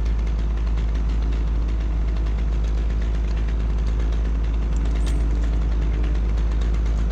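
An engine running steadily at idle, with a constant deep rumble underneath.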